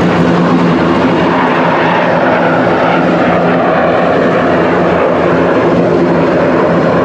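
Jet engines of several Dassault/Dornier Alpha Jet trainers, twin Larzac turbofans each, running loud and steady with a constant low hum as the formation rolls down the runway for takeoff.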